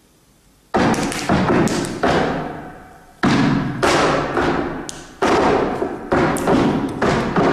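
Flamenco dancer's shoes stamping on the stage floor: after a brief hush, about ten sharp, heavy stamps, some in quick pairs, each ringing on in the hall's echo before the next.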